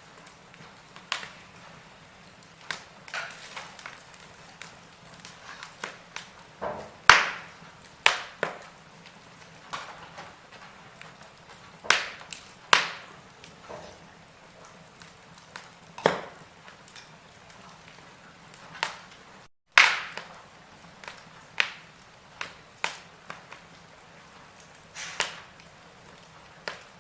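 Wood fire burning in a fireplace, crackling with irregular sharp pops and snaps over a faint steady hiss. The sound cuts out for a split second about two-thirds of the way through.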